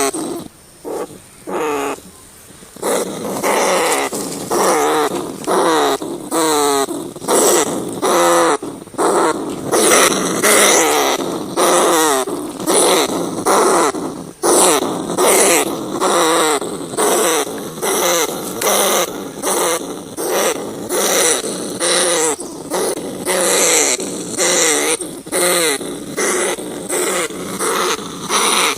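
Rats calling: short, rasping, growl-like squeals repeated about twice a second, each with a wavering pitch, sparser and quieter for the first few seconds.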